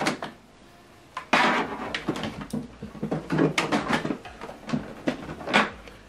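Handling noise: a sudden rustle about a second in, then irregular scrapes, knocks and rustles as the printer and its USB cable are handled.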